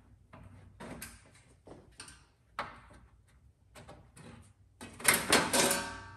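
Light metal clicks and taps as pinball coin-door parts are handled. About five seconds in comes a loud clatter of sheet-metal plates knocking together, with a brief metallic ring.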